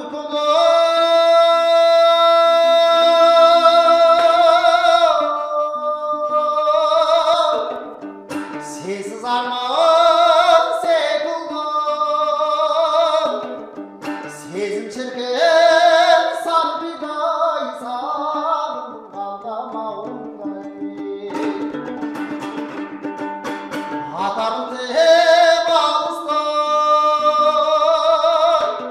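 A man singing a traditional Kazakh song while strumming his own dombra, the two-stringed Kazakh lute. It opens with one long held note lasting several seconds, followed by shorter sung phrases over the steady strumming.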